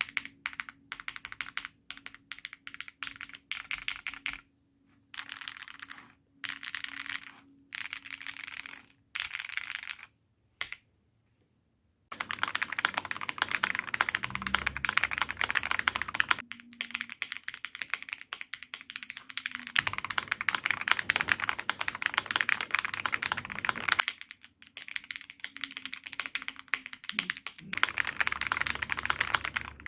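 KBD67 Lite 65% mechanical keyboard with lubed Cherry-top SP-Star Meteor White switches being typed on. At first short runs of key presses broken by pauses and a brief silence, then fast, continuous typing through the rest.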